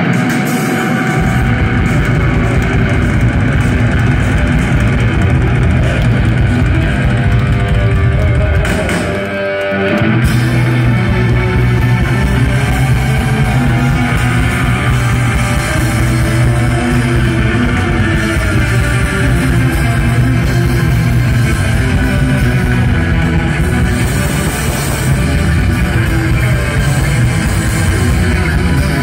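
Rock band playing live: electric guitars, bass and drum kit. The bass and drums come in about a second in, drop out briefly around nine seconds in, then the full band plays on.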